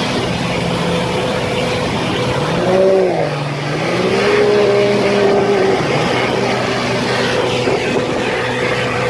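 Boat motor running on a test run over a steady rush of noise; its pitch drops about three seconds in as the throttle eases, then climbs back up a second later and holds steady.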